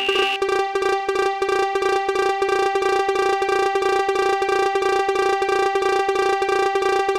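Electronic cartoon level crossing alarm: a single-pitched tone pulsing rapidly, about eight times a second. A higher ringing tone drops out about half a second in.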